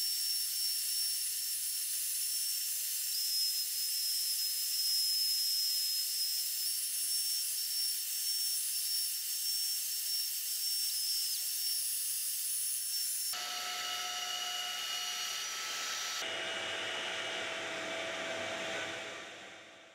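Makita router on a Onefinity CNC machine carving particle board, with a dust-collection vacuum running: a steady high-pitched whine over a hiss. About two-thirds of the way through the mix of tones changes abruptly, and the sound fades out at the end.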